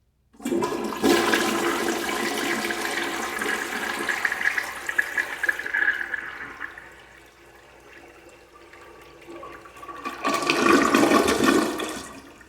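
American Standard Cadet toilet flushing: a sudden rush of water starts about half a second in and runs strong for about six seconds, fades to a quieter running hiss, then surges loud again for about two seconds near the end before stopping.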